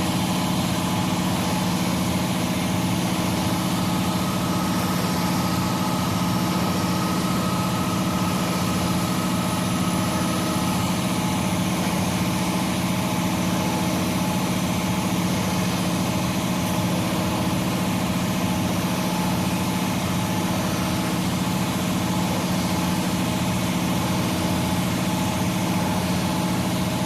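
Diesel engine of a ready-mix concrete truck running steadily at a constant speed, a low, even drone with no revving.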